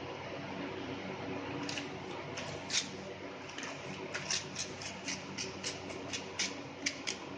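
Newspaper sheets being handled and smoothed by hand: paper rustling with a run of short, crisp crackles that start about two seconds in and come several times a second, over a low steady hum.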